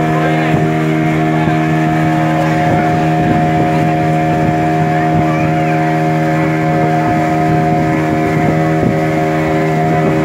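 Engine of a passenger motorboat running at a steady cruising speed, a constant even drone, with water rushing along the moving hull.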